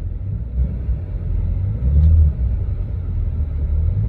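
BMW M3 Competition G80 driving uphill under throttle: a steady low rumble from the twin-turbo straight-six and the road, swelling louder about two seconds in. No clunk from the rear axle comes through while the car is pulling under load.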